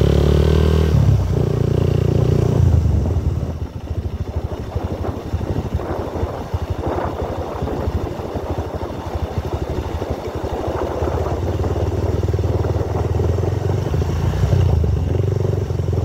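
Motorcycle engine running while riding. About three seconds in the engine note drops back and a rattly clatter of the bike and road takes over, then the engine note builds again and is full near the end.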